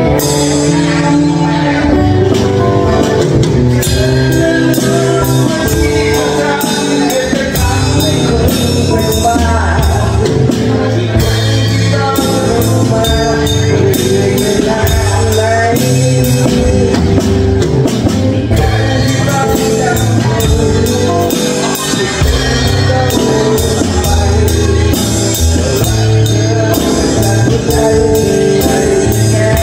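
Live band music: a drum kit keeps a steady beat of drum and cymbal hits under sustained bass notes and other instruments.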